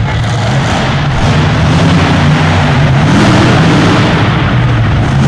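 Monster truck engine revving hard, very loud, the revs rising and falling over a dense roar.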